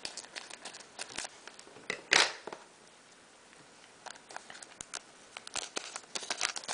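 Foil booster pack being torn open and crinkled, with cards handled: scattered small crackles and clicks, one longer tear-like rip about two seconds in, then a quieter spell followed by a busy run of crinkles.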